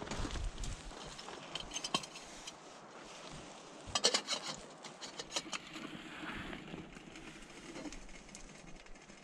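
Light metallic clinks, knocks and rattles from handling a small sheet-metal wood stove and a steel camp cup, coming in scattered clusters with the loudest about four seconds in.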